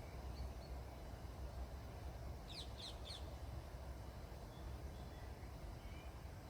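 Birds calling outdoors: three quick high chirps about two and a half seconds in, then a few faint short whistles, over a steady low rumble.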